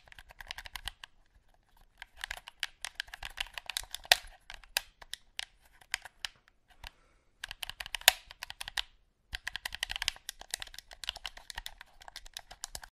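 Game controller buttons being pressed rapidly: quick, irregular clicks coming in bursts, with short pauses in between.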